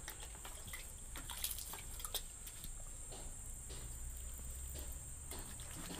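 Hands working shampoo into a dog's soaked fur: faint, irregular wet squishing and rubbing, with small drips.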